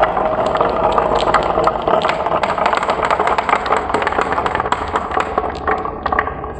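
Many glass marbles rolling down a wooden board's wavy grooves and through plastic track curves. A steady rolling rumble carries dense clicking as they knock against each other and the wood, and the clicks thin out near the end.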